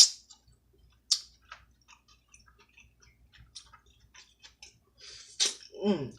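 Close-up eating sounds: scattered wet mouth clicks and lip smacks while chewing seafood, with a sharp smack at the start and another about a second in. A short voiced hum of the eater near the end.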